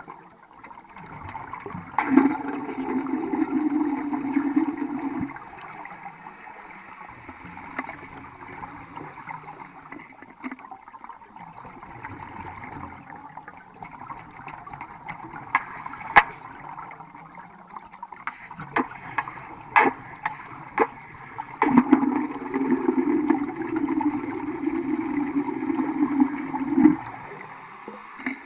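Electric welding arc crackling in two runs of a few seconds each, the first near the start and the second, longer, in the later part, with a lower steady hiss and sharp snaps between them.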